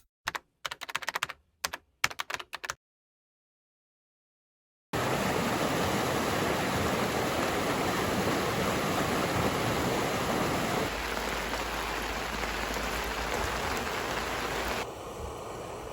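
A quick run of sharp clicks, then a short silence, then a mountain stream rushing steadily. The water drops a step in level about eleven seconds in and again near the end.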